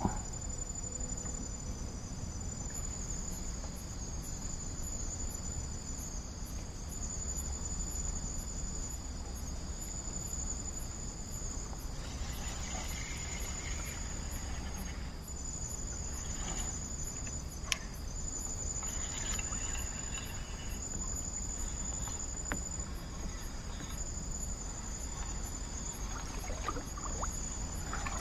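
Insects chirring in a steady, high-pitched drone from riverside vegetation, with a faint low hum underneath and one sharp click a little past the middle.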